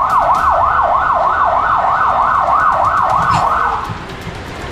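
Electronic siren in a fast yelp, its pitch sweeping up and down about three times a second, cutting off about four seconds in.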